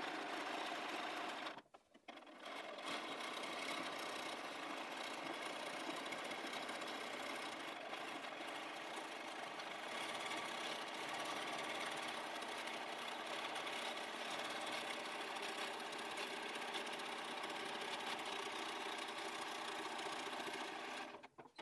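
Bernina 570 QE sewing machine running at a steady speed, top-stitching close to the edge of a zip with a zipper foot. It stops briefly about two seconds in, then runs on evenly and stops near the end.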